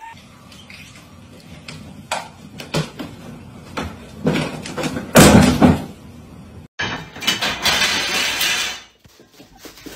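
A string of knocks, bangs and thumps from household objects being bumped and knocked about. The loudest bang comes about five seconds in, followed by about two seconds of clattering from about seven seconds in.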